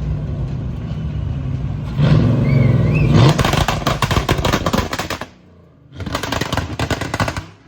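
Hill-climb race car engine running at speed, its pitch rising about two seconds in, then a rapid crackling rattle under hard acceleration that breaks off briefly and returns.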